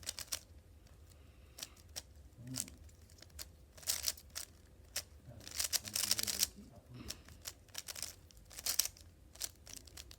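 3x3 Rubik's cube being turned by hand during a solve: irregular plastic clicks and clacks as the layers turn, with quick runs of rasping turns now and then.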